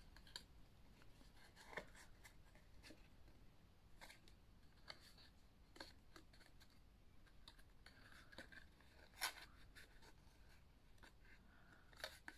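Faint rustles and light taps of scored cardstock being folded and pressed into a box shape, its glued tabs pressed together, with the clearest tap about nine seconds in.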